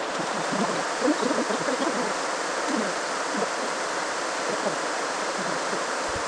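Steady rush of water from a mountain waterfall and its stream, with small burbles low in the sound.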